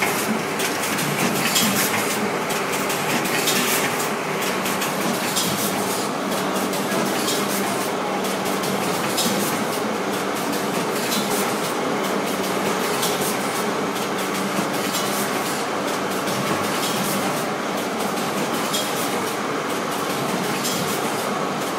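Rotary premade-pouch packing machine running: a steady mechanical clatter over a constant hum, with repeated sharp clicks as the turntable and grippers cycle.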